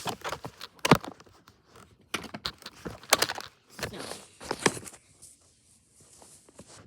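Small toys being handled: a string of clicks and knocks, the sharpest about a second in, with some rustling.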